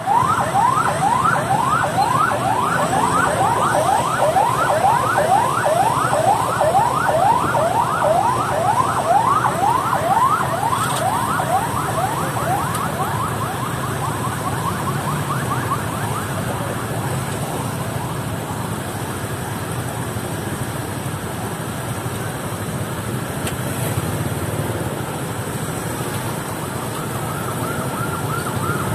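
Police convoy sirens in fast yelp, quick rising sweeps about three a second, fading away over the first half. Near the end a second siren starts a steady, slowly rising wail, over a low rumble of street traffic.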